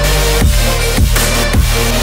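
Background electronic music with a heavy bass line and a steady kick drum, without singing.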